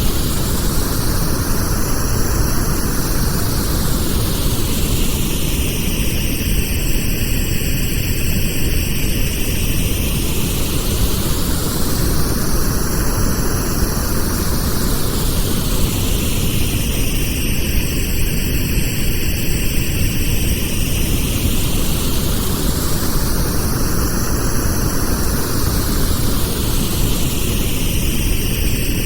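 Pink noise: a steady, even hiss, heavier in the low end, with a slow sweep in its upper part that rises and falls about every eleven seconds.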